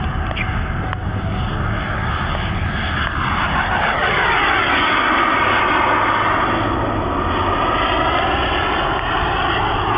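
Twin miniature turbine engines of a radio-controlled model A-10 Thunderbolt jet running as it makes a pass, growing louder about three seconds in and staying loud as it goes by, its pitch shifting as it passes.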